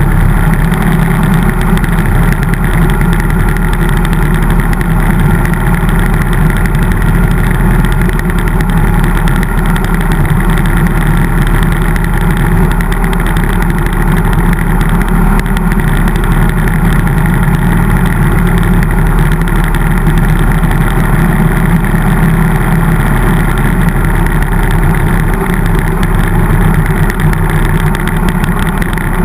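Harley-Davidson motorcycle's V-twin engine running steadily while cruising at road speed, heard loud from a camera mounted on the bike.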